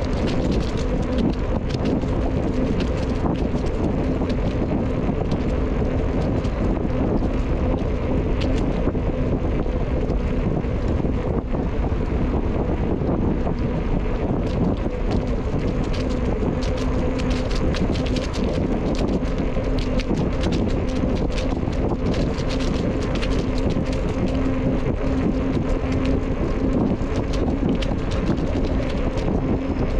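Wind rushing over the microphone of a camera riding on a moving bicycle, a steady rush mixed with tyre and trail noise, small ticks and a faint steady hum.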